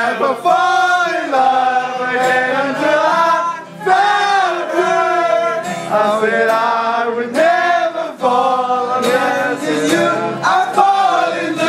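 A song with male singing, and a group of young men singing along loudly to its chorus.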